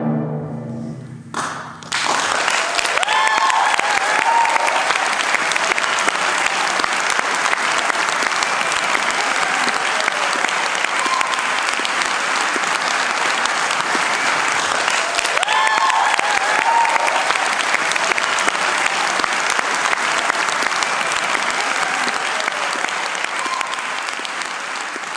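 The final chord of the choir, two pianos and percussion dies away, and about two seconds in the audience breaks into sustained applause with a few cheers. The applause fades out near the end.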